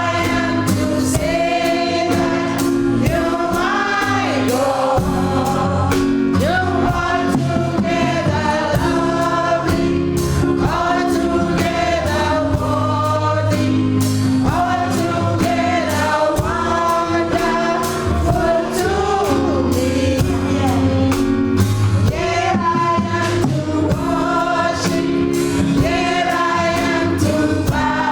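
Gospel choir singing live with band accompaniment: voices over a steady bass line, chords and a regular beat.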